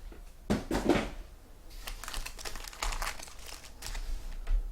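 Trading-card packaging being handled and opened: plastic wrapper crinkling, with some tearing. A few sharp rips come about half a second in, followed by steady crackling rustle.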